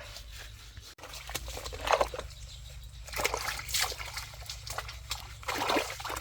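Water splashing and sloshing in irregular bursts as a dog is washed with flea shampoo.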